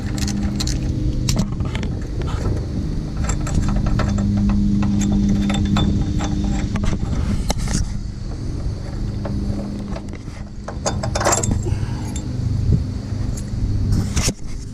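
A steady low mechanical hum, louder for a few seconds around the middle, with scattered metallic clicks and rattles throughout and a couple of louder knocks near the end.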